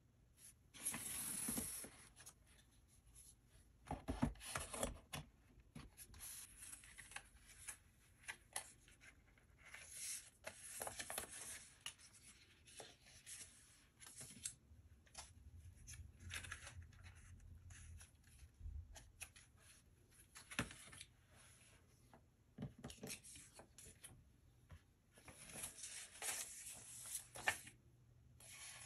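Paper and cardboard packaging being handled: irregular rustling and sliding of the paper documentation envelope and manual leaflet, with light taps and clicks as items are taken from the box and laid on a wooden table.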